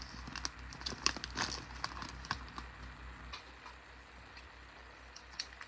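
Foil-paper trading card pack wrapper crinkling and crackling as it is pulled away from the cards and handled. The crackles are dense for the first few seconds, then thin out to faint handling noise.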